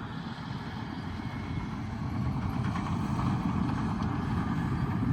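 Caterpillar bulldozer's diesel engine running while pushing dirt, a steady low rumble that grows gradually louder.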